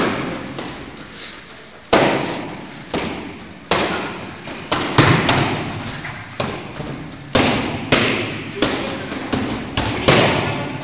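Boxing gloves and padded focus mitts smacking together in a kickboxing pad drill: more than a dozen sharp smacks at an uneven pace, some in quick pairs and threes, each trailing off with a short echo.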